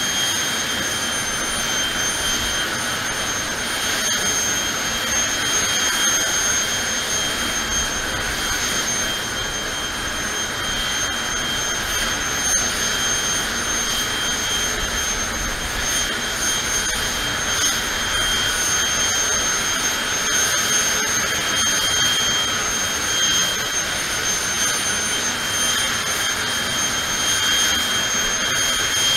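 Jet car's turbine engine running steadily at idle on the start line: a constant high-pitched whine over a steady rushing roar.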